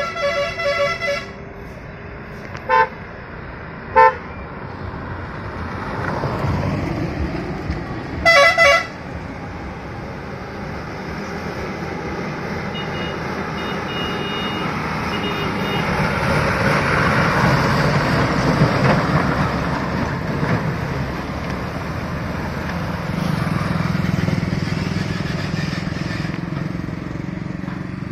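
A vehicle horn toots in short blasts several times over the first nine seconds. Then the diesel engine of a heavy multi-axle Ashok Leyland truck grows steadily louder as it draws near and passes, loudest a little past the middle.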